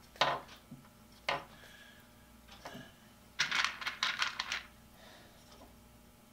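Small metal tools and parts clicking as they are handled, then about three and a half seconds in a second-long clatter of insulated crimp connectors being sorted in a small plastic parts box.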